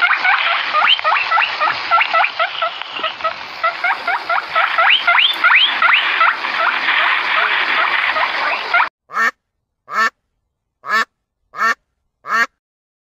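A group of animals calling over one another in a dense, continuous chorus of short calls, which stops abruptly about nine seconds in. Five separate single calls follow, spaced about a second apart.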